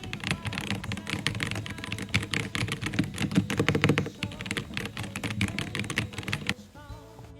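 Rapid clicks of typing on a computer keyboard, stopping about six and a half seconds in.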